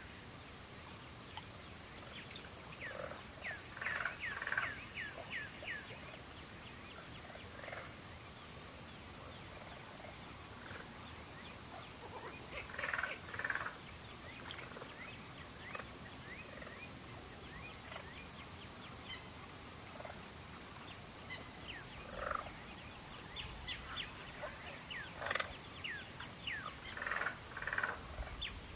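Crickets trilling in a continuous chorus, a steady high-pitched pulsing drone. Scattered short falling chirps come over it in small clusters several seconds apart.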